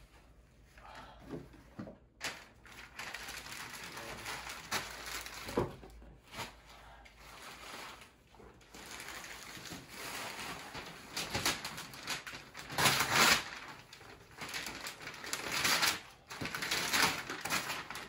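Wrapping paper and packaging rustling and crinkling as presents are unwrapped and a gift box is opened, loudest about 13 seconds in and again around 16 to 17 seconds.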